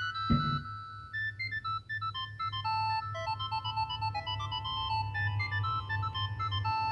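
LG TM125 mobile phone playing a ringtone melody through its small speaker: a quick run of short synthesized notes stepping up and down. A sharp click sounds near the start, with a steady low hum underneath.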